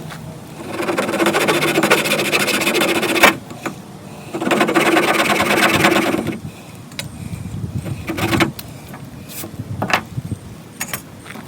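Yucca hand-drill spindle spun back and forth between the palms in the notch of a crepe myrtle fire board: two loud stretches of scratchy grinding friction, each about two to three seconds, with a steady underlying tone, the spindle working the wood into dust. After the second stretch come quieter rustling and a few sharp knocks.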